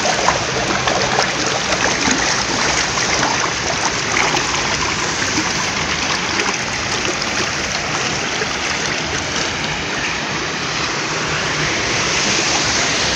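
Water rushing and churning through an open concrete channel of a water-treatment works, a steady, even rush.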